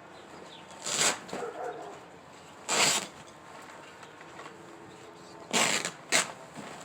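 Mattress cover and padding being ripped apart by hand: four short, noisy tearing strokes, the last two close together.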